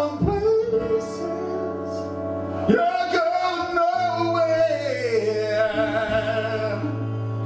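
Man singing long, held notes with a slow glide in pitch, over acoustic guitar chords.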